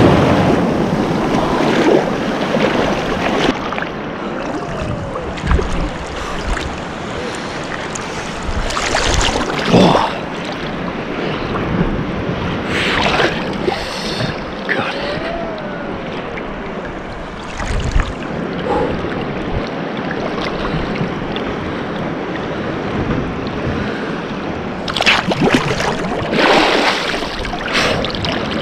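Sea surf breaking and sloshing close to the microphone in shallow water, a steady wash of water with irregular louder splashes.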